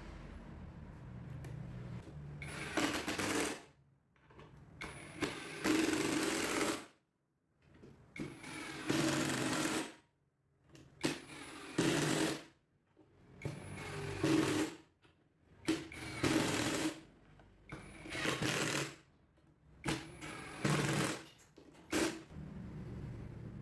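A power tool running in a string of short bursts of one to two seconds each, with abrupt stops between them.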